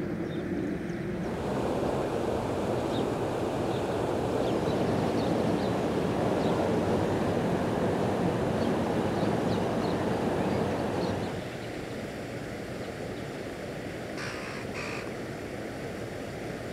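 Canal water rushing through the gap where a temporary dam has been removed, a steady rushing noise that gets quieter about eleven seconds in.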